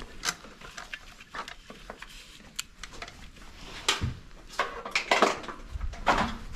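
Hand tools clicking and clacking against a plastic coolant pipe and the surrounding engine parts as it is worked loose with pliers. The sharpest clacks come about four, five and six seconds in.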